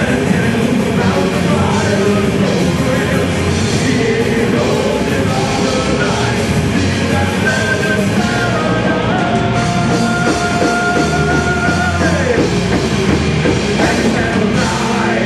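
Celtic metal band playing live: distorted electric guitars, bass and drum kit, with long held high notes a little past halfway and a falling slide about three quarters of the way in.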